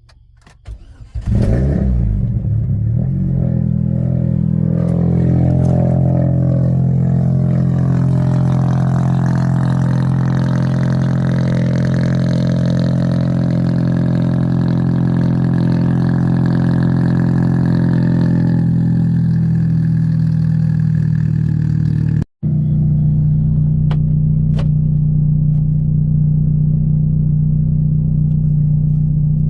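Cold start of a supercharged Saturn Ion Redline's 2.0-litre four-cylinder: the engine cranks and catches about a second in, then holds a high, steady fast idle. About two-thirds of the way through the idle eases down, and after a brief cut it settles into a steady lower idle.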